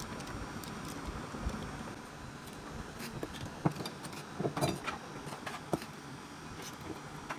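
Scattered small clicks and scrapes, most of them between about three and six seconds in, from hands working thin copper winding wire and a flat metal blade at the end of a small DC motor armature being rewound by hand.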